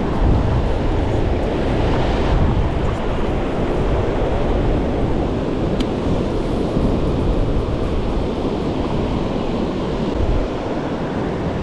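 Ocean surf washing and breaking steadily, with wind buffeting the microphone in a low rumble.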